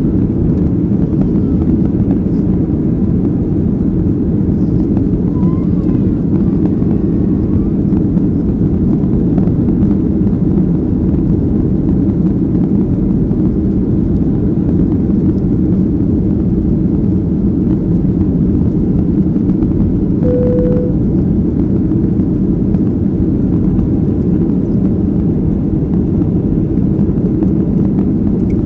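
Steady drone of a Boeing jet airliner climbing after takeoff, its engines and rushing air heard inside the passenger cabin, deep and even throughout.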